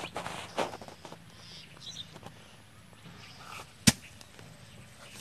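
A hoe chopping and scraping into dry soil, with one sharp, loud knock about four seconds in.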